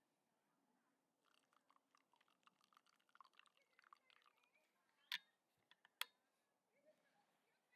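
Faint irregular crackling and clicking for a few seconds, then two sharp clicks about a second apart.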